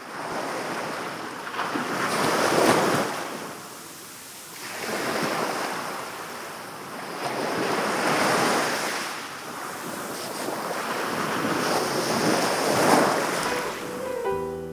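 Small sea waves breaking and washing up a sandy beach. The surf swells and fades about four times, a few seconds apart.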